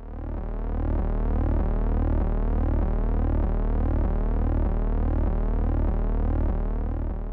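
A deep synthesized drone, a low hum that pulses slowly with sweeping tones above it; it swells in at the start and fades away near the end.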